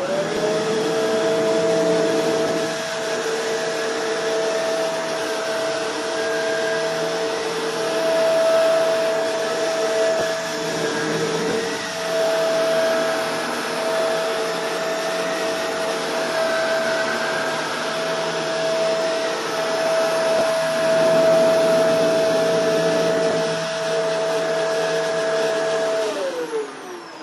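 Shark Rotator NV752 upright vacuum cleaner running on its low-pile carpet setting, a steady motor whine over the rush of suction. It starts up at the beginning and winds down with a falling pitch near the end as it is switched off.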